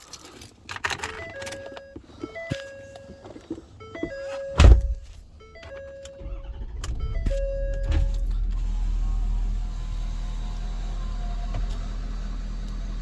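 Ford Super Duty cab electronic warning chimes sounding in a series of short stepped tones, with one heavy thud about halfway through. From about six seconds in, the 6.7 Powerstroke V8 turbodiesel turns over and settles into a steady low idle.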